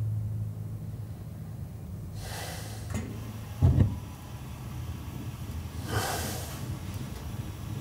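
A sleeping person's slow breathing, one soft breath about every four seconds. Between the breaths comes a short, dull thump, the loudest sound.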